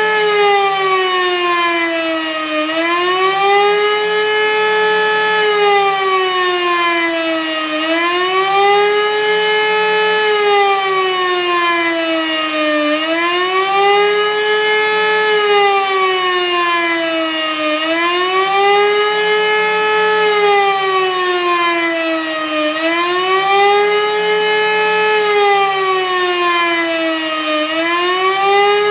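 Elektror E57 electromechanical civil-defence siren sounding the air-raid alarm: a loud wail that rises quickly, holds, then sinks slowly, over and over about every five seconds without a break.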